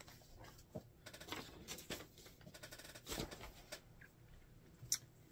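Faint intermittent rustling and soft taps of fabric being handled and unfolded, with a slightly louder rustle about three seconds in and a sharp tap just before the end.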